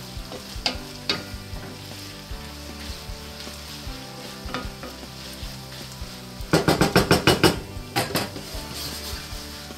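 Ground beef, onion and garlic sizzling in a skillet as a wooden spoon stirs and scrapes through them. About two-thirds of the way in, the wooden spoon is knocked about ten times in quick succession against the pan and the metal spoon rest, then twice more.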